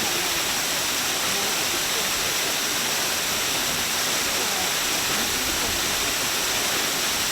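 The Minoh Falls waterfall, a steady, even rush of falling water splashing into its pool.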